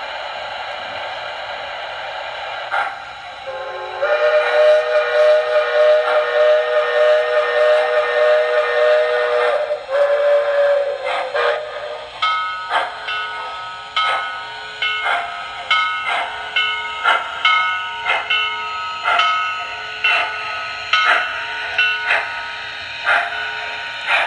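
O scale model steam locomotive's digital sound system: a steady steam hiss, then a long whistle blast lasting about six seconds and a short second blast, followed by regular chuffing with a ringing bell as the engine pulls forward.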